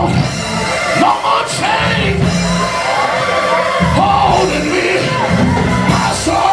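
Loud church music with voices singing and shouting over it, the congregation's response to the end of a Pentecostal sermon.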